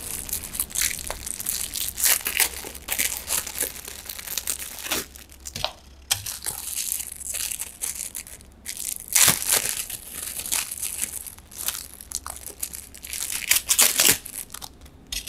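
A small clear plastic bag crinkling and tearing as it is worked open by hand to get a keychain out. The rustling comes in irregular bursts with a few brief pauses.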